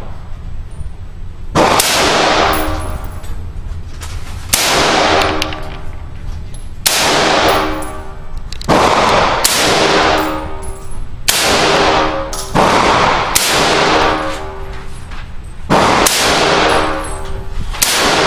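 Smith & Wesson AR-15 carbine firing single 5.56 mm shots one at a time, about nine of them a second or two apart. Each shot ends in a long ringing decay.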